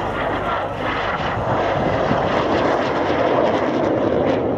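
Hawker Hunter jet flying a display pass: a steady jet roar that grows slowly louder.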